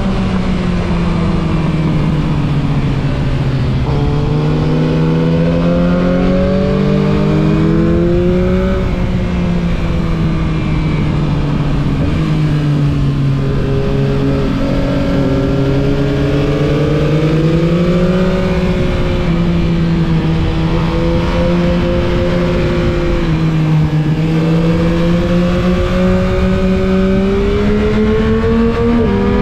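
Yamaha MT-09 SP's three-cylinder engine under riding load, its pitch climbing as the bike accelerates and sinking as it eases off, three times over, with wind noise underneath.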